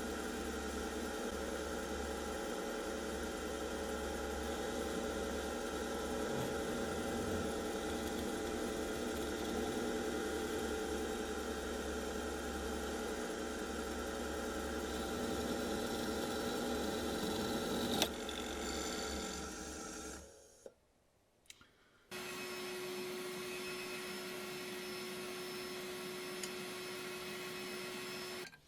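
A steady mechanical hum made of several steady tones over a low rumble, with a sharp click about 18 seconds in. It dies away a couple of seconds later. After a brief silence a different steady hum with one clear tone starts up.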